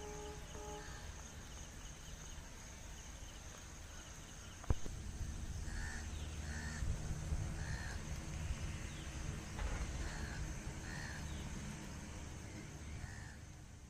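Crows cawing, about eight short caws spread over the second half, over a steady low rumble and a thin high steady whine. A single sharp knock just before five seconds in is the loudest sound.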